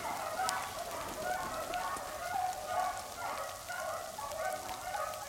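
A pack of beagles baying as they run a rabbit, many overlapping voices calling without a break. A few faint ticks of frozen rain hitting a coat.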